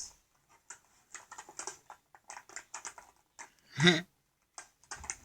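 Packaging being handled in short, crackly bursts, plastic and cardboard, as an action figure is worked out of its box. About four seconds in comes one short, loud pitched call, the loudest sound here.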